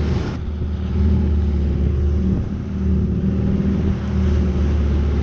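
Long-tail boat's engine running steadily under way, a loud low drone.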